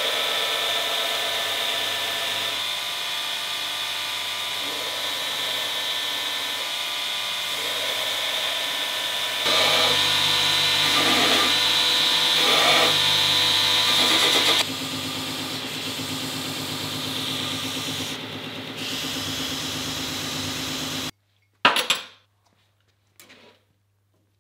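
Electric belt grinder running with a steel tube held against the moving belt: a steady grinding hiss whose level shifts up and down a few times. About three seconds before the end it cuts off abruptly, and two sharp knocks follow, the first one loud.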